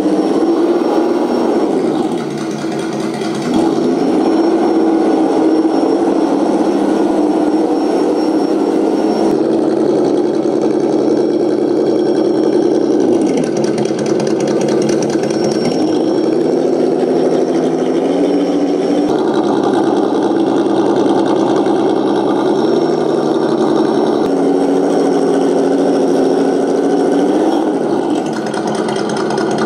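Sense Innovations ESS-Dual engine sound simulator playing a synthesized truck engine through its two speakers on a 1/10 scale RC pickup, the engine note dropping and climbing again several times as the throttle changes.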